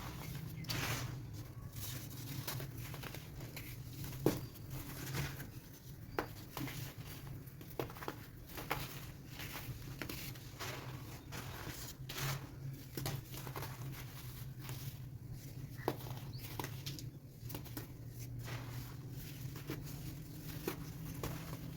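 Dry chunks of baking soda being crumbled and crushed, giving irregular crunching crackles with a few sharper snaps, over a steady low hum.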